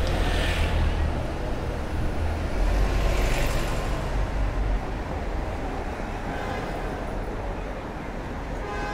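Busy city street traffic: a steady rumble of passing vehicles, with louder passes near the start and about three seconds in.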